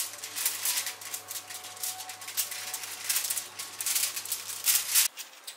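Aluminium foil crinkling and rattling as chopsticks and fingers pick at grilled fish on a foil-lined tray: a quick, uneven run of dry clicks over a low steady hum. Both cut off suddenly a little over five seconds in.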